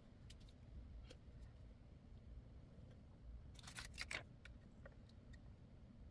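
Near silence with a low background hum, broken by a few faint short clicks. A small cluster of clicks and rustles comes a little past halfway.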